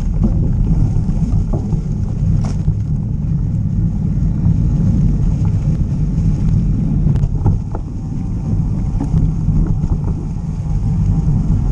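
Steady wind rumble on the microphone of a camera on a moving mountain bike, with a few sharp clicks from the bike.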